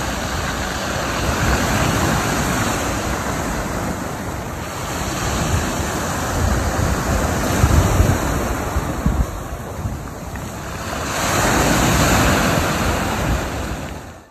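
Small sea waves breaking and washing over a pebbly, rocky shore, the surf swelling and easing in slow surges, with gusts of wind rumbling on the microphone.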